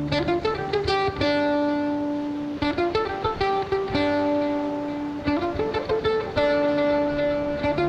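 Background music: a melody of plucked string notes, each note starting sharply and ringing on.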